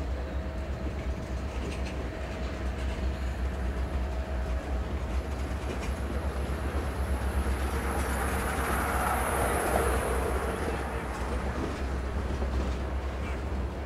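A long freight train rolling steadily past: a continuous rumble of cars on the rails. A faint high squeal rises and fades away again in the middle.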